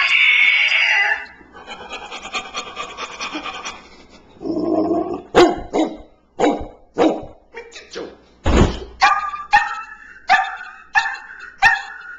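A person vocally imitating a dog: a quick string of short barks and yelps in the second half, with one deep thump among them. Before the barks comes a rapid fluttering mouth sound.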